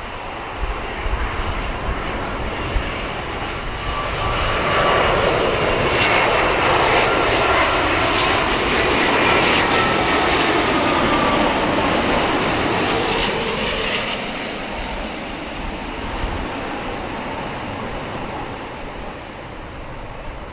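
Jet airliner passing on approach with its landing gear down: the engine noise swells about four seconds in and stays loud for roughly ten seconds. A whine then glides down in pitch as it goes by and the sound slowly fades.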